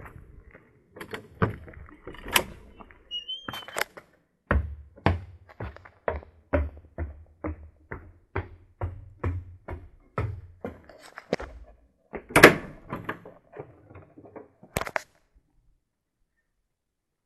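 Footsteps on wooden stairs and floorboards, about two steps a second, each with a low hollow thud, and one loud knock about twelve seconds in. A few scattered clicks and a short squeak come before the steps begin, and everything stops suddenly about fifteen seconds in.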